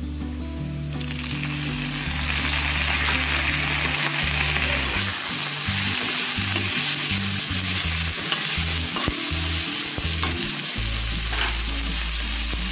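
Onions and fresh tomato wedges sizzling in hot oil in a steel kadhai. The hiss swells about a second in as the tomatoes go in, then holds steady, with a few light clicks of stirring against the pan.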